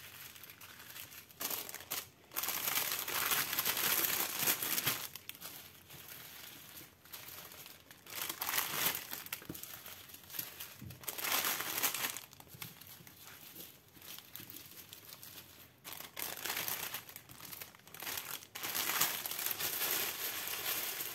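Small plastic bags of diamond painting drills and clear plastic packaging crinkling as they are handled, in several separate bursts of rustling.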